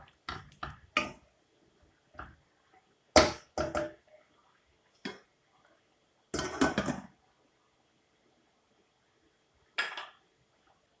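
Cookware being handled: scattered clinks and knocks of pots, a lid and utensils, the sharpest about three seconds in and a short clatter around six to seven seconds.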